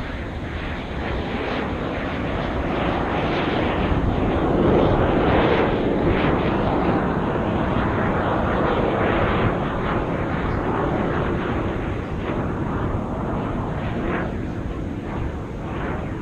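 Engine noise of a display aircraft flying past overhead: a broad rumble that swells to its loudest about five seconds in, holds for a few seconds, then slowly fades.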